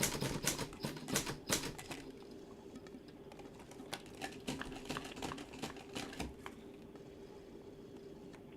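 Typewriter keys clacking in quick runs of strokes, loud and dense for the first two seconds, then fainter and more spaced out, stopping about six and a half seconds in.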